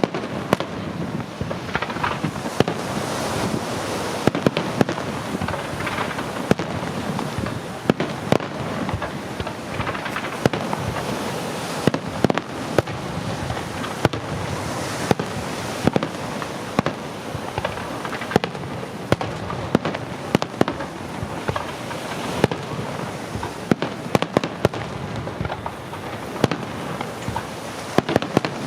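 Aerial fireworks display by Pirotecnia Martí: a dense, continuous crackle broken by many sharp bangs at irregular intervals.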